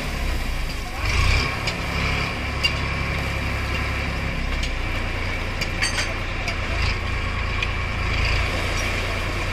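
Eicher 551 tractor's 50 hp diesel engine running steadily while its hydraulic tipping trolley is raised to dump a load of soil. A few sharp clicks sound as the load comes out.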